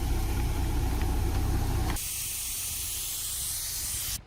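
A vehicle engine idling with a low rumble, then, about two seconds in, a steady hiss of air escaping from a tyre as it is aired down. The hiss stops suddenly near the end.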